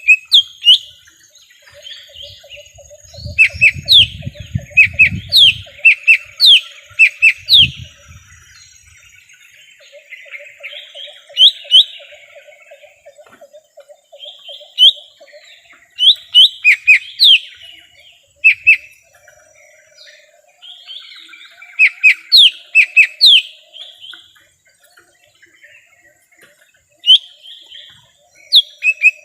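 Cucak ijo mini (lesser green leafbird) singing a varied lure song of sharp whistled notes that sweep up and down, in quick clusters of several notes with short pauses between. A fast low trill runs underneath at times, and a low rumble comes a few seconds in.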